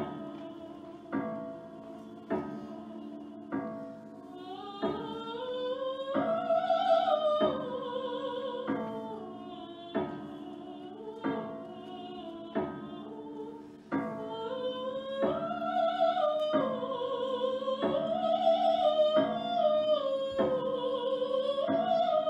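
An operatic tenor sings long, wavering notes that rise and fall, over a grand piano striking a chord about every second and a quarter. The voice comes in about five seconds in, drops back for a few seconds around the middle, and returns.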